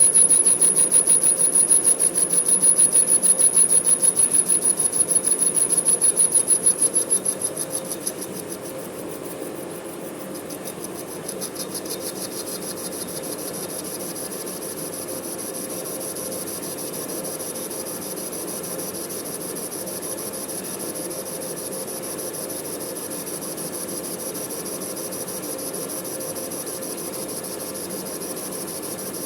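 Manual metal lathe running, a fast, even rasping with a steady high whine and a low hum. It is louder for the first seven seconds or so, then drops to a quieter, steadier run.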